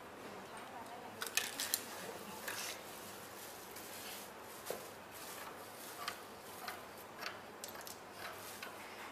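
Scattered light clicks and taps of hand tools and a metal zipper being handled on a sewing table, the loudest a quick cluster about a second and a half in.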